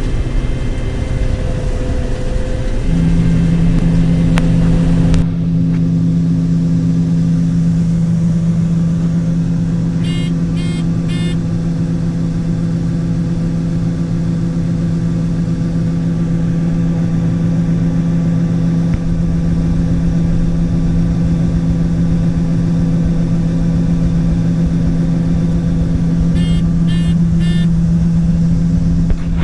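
John Deere 9510 combine running steadily while harvesting soybeans, a constant engine drone and hum that grows stronger a few seconds in. Two short runs of rapid electronic beeps come about ten seconds in and again near the end.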